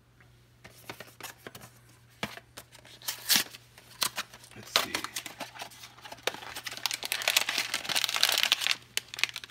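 Cardboard blind box being pulled open and its inner wrapper crinkled and torn by hand: a run of sharp clicks and rustles from about half a second in, becoming continuous crinkling near the end.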